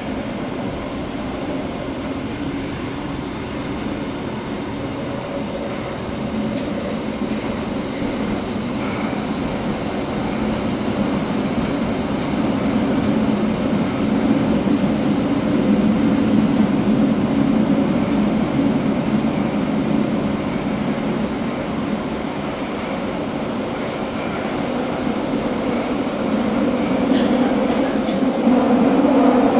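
Metro train running through a tunnel, heard from inside the car: a steady low rumble of wheels and running gear that swells about halfway through, eases, then grows louder again near the end. A single brief sharp click about six seconds in.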